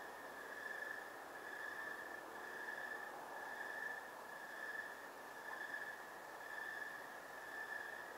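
Night insect chorus: a steady high trilling that swells and fades roughly once a second, over a light hiss.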